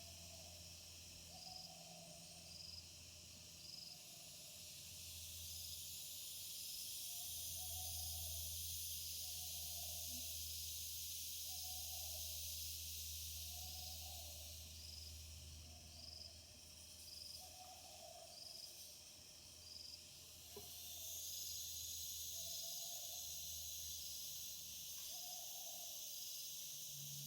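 Night animal chorus: a short, low hooting call repeats about once a second over a dense, steady insect buzz, with a regular high chirp alongside.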